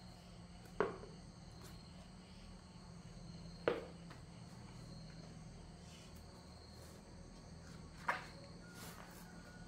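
A child pulling off rubber boots and stepping into sandals on a dirt floor: three knocks, a few seconds apart, as the boots and feet come down, over the steady chirring of crickets.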